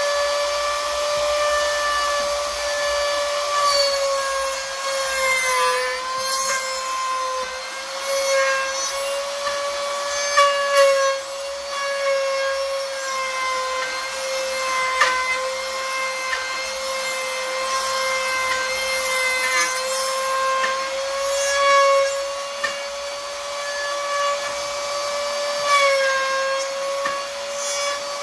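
The electric motor of a homemade wood-boring machine runs with a steady high whine while its bit drills into a wooden workpiece. The pitch sags slightly a few times as the bit takes load, with scraping cutting noises and a few sharp clicks.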